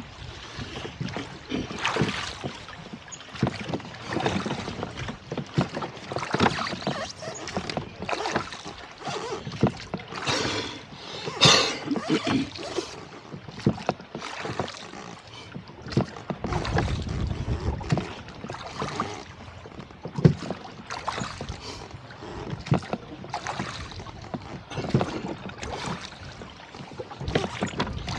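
Rowboat moving on choppy lake water: water splashing and knocking against the boat in surges about every two to three seconds, with a gust of wind on the microphone past the middle.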